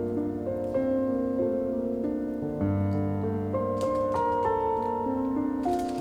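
Background music on piano-like keyboard: held chords with notes changing every second or so.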